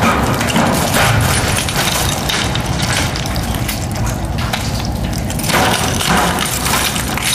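Loud, dense crunching, scraping and knocking of someone scrambling through a cramped, debris-strewn passage.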